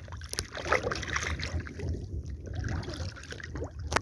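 Seawater sloshing and splashing, with short knocks and splashes scattered through, over a steady low rumble of wind on the microphone.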